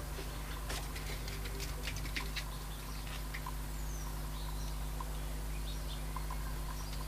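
Faint small clicks and taps from a circuit board and wires being handled on a cutting mat during the first couple of seconds, over a steady low hum. A few faint high chirps and squeaks come later, while solder is fed to the joint.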